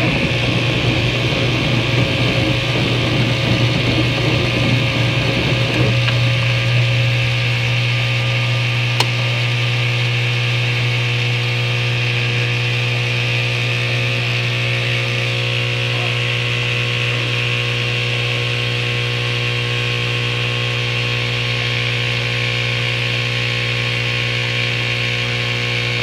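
A machine running steadily with a strong low hum and a hiss, rough and uneven for the first few seconds, then settling into an even drone. There is one short click about nine seconds in.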